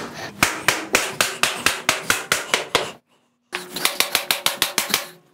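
Rubber mallet tapping fast and evenly, about five or six blows a second, on a Tap N Go laminate plank to knock its click-lock joint down and together, with a short break about three seconds in.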